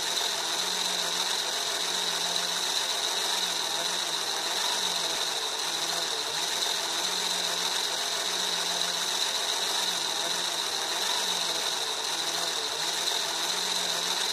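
LEGO Technic gear mechanism steadily whirring as it spins a LEGO Power Functions M motor used as a dynamo to generate current for the lights. The whir carries a high steady whine and a low hum that wavers.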